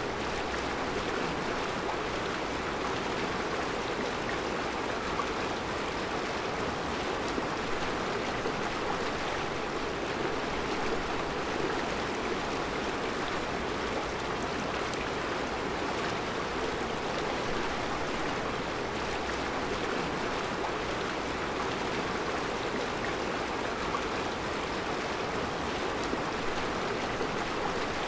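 Mountain river flowing over a rocky bed of round stones: a steady, even rush of water.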